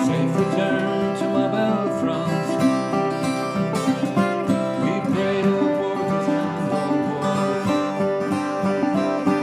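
A resonator guitar and a steel-string acoustic guitar playing together, picked and strummed in a steady instrumental passage with a bluegrass/country feel.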